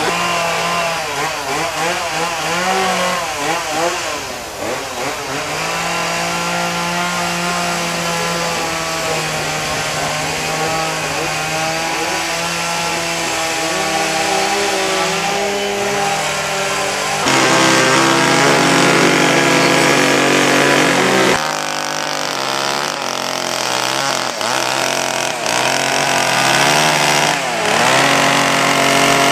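Two-stroke carving chainsaws running and revving, their pitch wavering up and down. The sound changes abruptly a little over halfway through and again a few seconds later.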